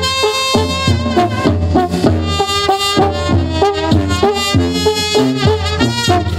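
Live banda (Sinaloan-style brass band) playing an instrumental passage between sung lines: sousaphone bass line, trumpets and other horns over drums, with no singing.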